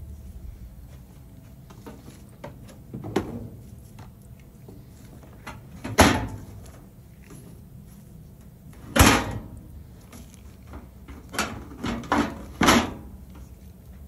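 Sheet-metal knocks and clunks as the GE dryer's cabinet and top panel are handled: several sharp knocks, the loudest about six and nine seconds in, with three quicker ones near the end.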